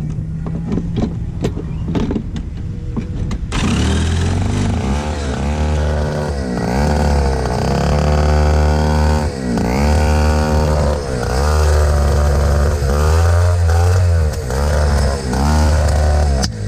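A handheld electric kart starter cranks a two-stroke race kart engine, which catches about three and a half seconds in. The engine is then revved up and dropped back several times. The engine revs but the kart won't drive, a sign of the broken intake reed-valve petals ("flappers") found on it.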